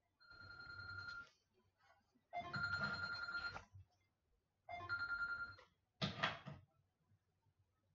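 A telephone ringing: three rings of about a second each, spaced about a second apart, each a steady high tone. A shorter fourth burst follows near the end.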